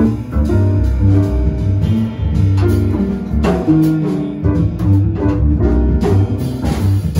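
A small jazz group playing live, the piano carrying the line over a deep, moving bass.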